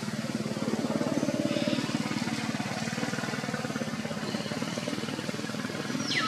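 An engine running steadily out of sight, a fast even throb. About six seconds in comes a short high squeak that falls in pitch.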